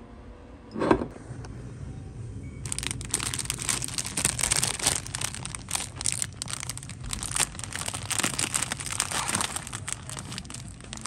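Plastic instant-ramen packets crinkling and rustling as they are handled and taken from a store shelf, from about three seconds in to the end. Before that, a single short thump about a second in.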